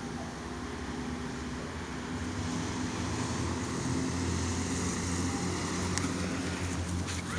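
A motor vehicle's engine running steadily, a low hum that grows louder from about two seconds in, with a brief rustle near the end.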